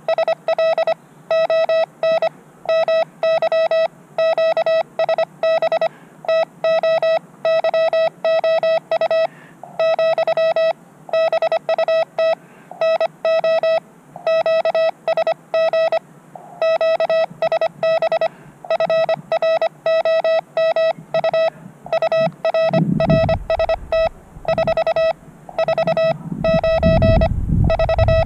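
Morse code (CW) on a portable ham radio: one steady beep-like tone keyed on and off in rapid dots and dashes. A low rumble joins near the end.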